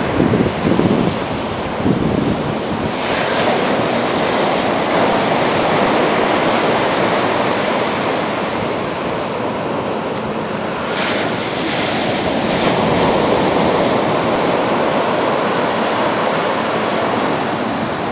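Ocean surf breaking and washing up a sandy beach in a continuous rush, swelling as waves crash, about 3 and 11 seconds in. Wind buffets the microphone with a few low thumps in the first two seconds.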